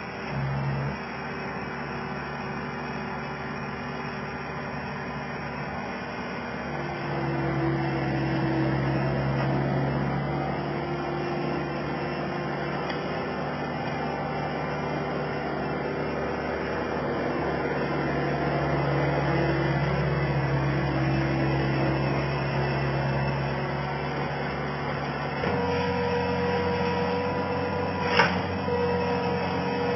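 Skid steer loader engine running, its pitch and loudness rising and falling as the machine works under changing load. The sound changes abruptly about 25 seconds in, and a sharp click follows near the end.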